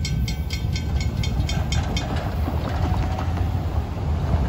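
Railroad grade-crossing warning bell ringing rapidly, about five strokes a second, and stopping about two seconds in as the gate arms go up after the train has cleared. A steady low rumble runs under it.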